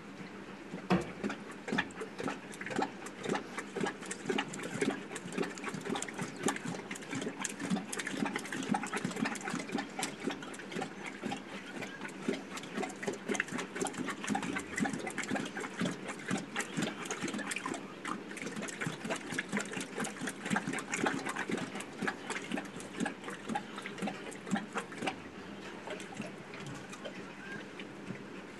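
Asiatic lioness lapping water from a stone tank: a quick, steady rhythm of wet laps, one after another.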